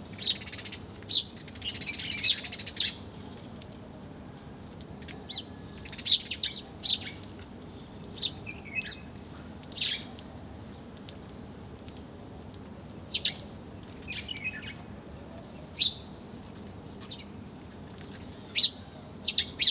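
Small birds chirping: about a dozen short, sharp, high chirps at irregular intervals, with a few softer twittering runs in between.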